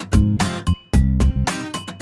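Background music with a steady beat, guitar and heavy bass.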